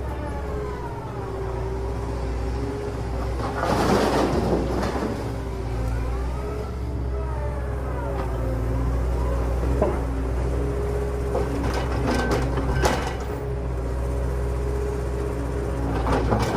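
Small electric motors of a Huina 1593 radio-controlled excavator whining, their pitch rising and falling over and over, over a steady low hum. A loud rasping burst comes about four seconds in, and sharp clicks follow near the end.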